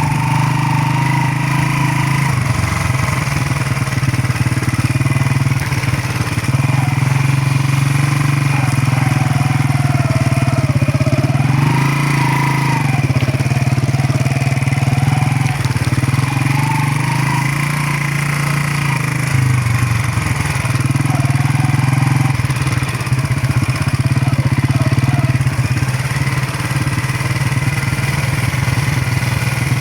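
Motorcycle engine running steadily while being ridden, its note rising and falling a little with the throttle, most clearly about twelve seconds in.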